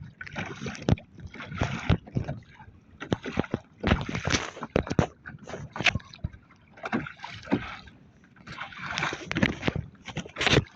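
Water splashing and slapping against the hull of a small fishing boat, with irregular sharp knocks and gusty hiss.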